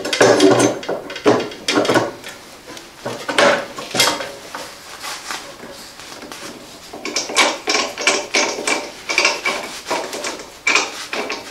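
Irregular knocks, clicks and clatter of plastic and metal snow blower parts being handled and fitted during assembly, busiest in the first few seconds and again after a lull.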